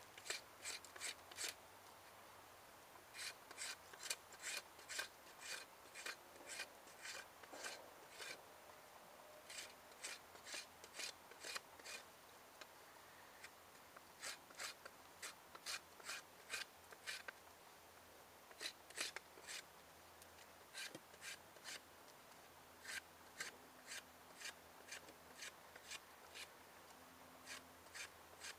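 Short scraping strokes, about three a second, in runs of several strokes with pauses between.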